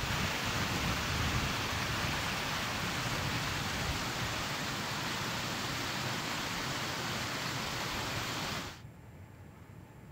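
Steady rush of running water, which cuts off suddenly near the end.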